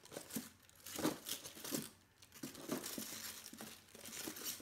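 Packaging crinkling and rustling in hands as a wax melt is taken out and unwrapped, in irregular crackles with a few sharper ticks.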